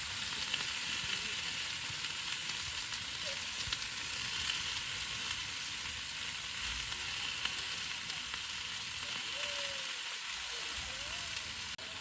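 Food frying in a pan: a steady sizzling hiss with small crackles.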